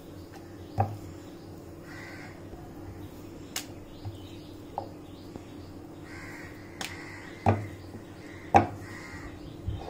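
A wooden rolling pin rolls out dough on a hard board, with several sharp knocks as it bumps or is set down, the loudest near the end. A bird calls a few times in the background: about two seconds in and twice near the end.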